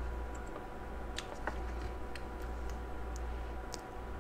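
A few faint, scattered clicks and ticks as the fire button of an aluminum Timesvape Dreamer mechanical vape mod is pressed and the mod is handled, over a steady low hum.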